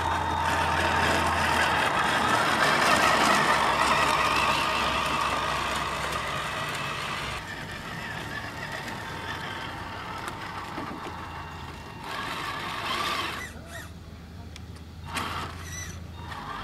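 Radio-controlled scale model semi-truck driving slowly: its electric drive motor and gears whir over a steady low hum. It is louder for the first half, then quieter, with a couple of brief swells near the end.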